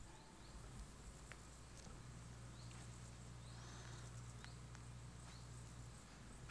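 Near silence: faint rural background with a few short, high chirps and a low steady hum through the middle.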